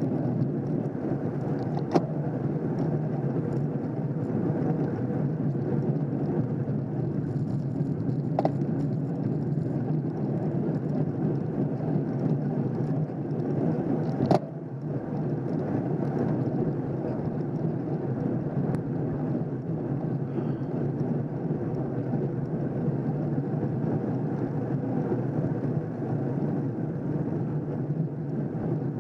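Steady wind and road rumble on a bicycle-mounted camera riding at race pace, broken by three sharp clicks spaced about six seconds apart in the first half, the last one the loudest.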